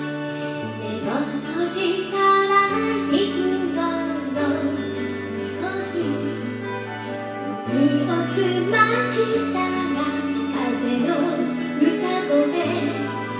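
Karaoke backing track of a gentle Japanese pop ballad with a woman's voice singing the melody over it.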